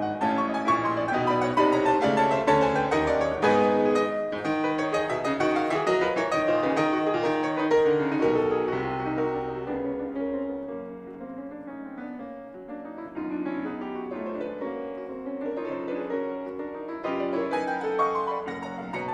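Two grand pianos playing together, a fast, dense fugue in B minor. The music thins and grows quieter about ten seconds in, then builds again near the end.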